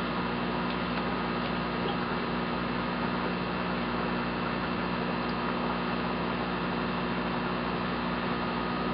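Steady electrical hum with a constant hiss: room background, with no distinct handling sounds standing out.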